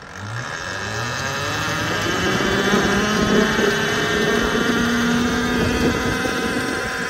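Volcon Grunt electric dirt bike pulling away up a dirt road. Its electric motor's whine rises in pitch and loudness as it accelerates over the first couple of seconds, then holds steady over a rush of noise from the tyres on the dirt.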